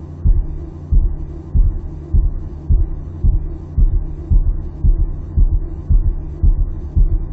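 Heartbeat sound: evenly spaced low thumps a little under two a second over a steady low hum.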